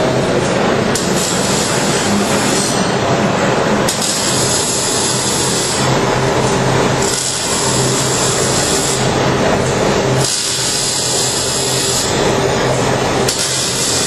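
MIG welding arc crackling and hissing steadily under a faint electrical hum, its tone shifting every second or two.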